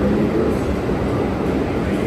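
New York City subway train moving through the station, a loud, steady rumble of wheels on the rails.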